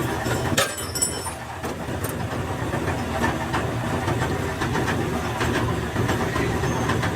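Factory machinery running steadily with a low hum, overlaid with scattered metallic clicks and knocks, one sharp knock about half a second in.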